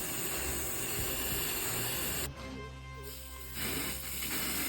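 Aerosol spray-paint can hissing in long bursts. It stops for about a second a little past the middle, then sprays again.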